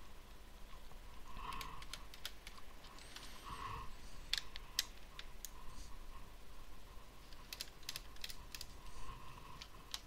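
Faint, irregular small clicks and ticks of a screwdriver working small screws out of a Lenovo ThinkPad T61 laptop's plastic base.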